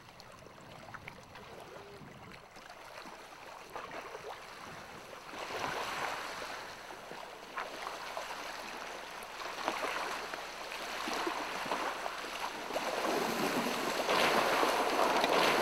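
Small waves washing and splashing on a pebble shore, swelling louder every few seconds and loudest near the end.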